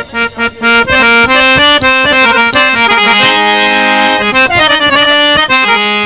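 Harmonium playing an instrumental interlude between sung lines of a qaseeda, a quick run of changing notes.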